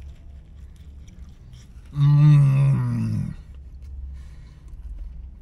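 A man chewing a big bite of Reuben sandwich. About two seconds in he gives a loud, drawn-out closed-mouth "mmm" of enjoyment that falls in pitch at the end, over a steady low hum.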